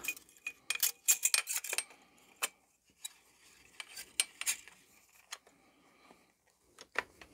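Light metallic clicks and rattles of a Browning A5 shotgun's magazine follower, spring and extension tube being handled and fed into the magazine tube: a quick run of clicks about a second in, then scattered ticks.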